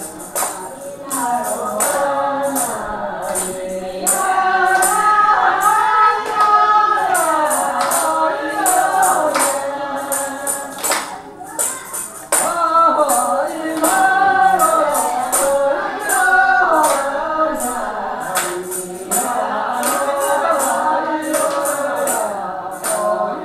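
A group of elders singing a song together, with a metallic jingling shaken on the beat a few times a second. The singing and jingling break off briefly about halfway through, then carry on.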